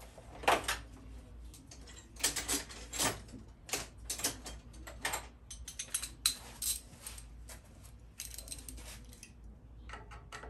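Small metal hand tools clinking and clattering as they are handled and sorted, a run of irregular clicks and rattles with a few sharper clacks.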